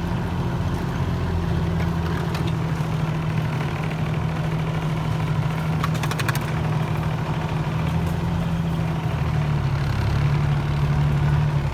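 A vehicle engine running steadily at low speed, with a short rattle of clicks about six seconds in. Near the end the engine note drops a little and grows slightly louder.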